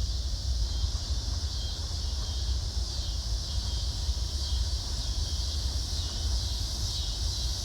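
Steady outdoor background: a low rumble of wind on the microphone and an even, high-pitched hiss.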